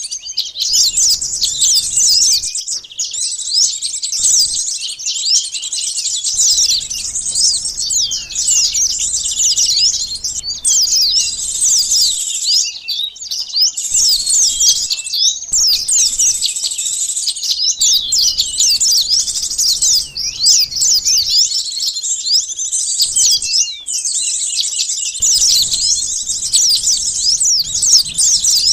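Sunbirds calling, a dense chorus of quick, high-pitched chirps and twittering trills from many birds at once, with a few brief breaks. It is a bird-lure recording used to draw sunbirds in.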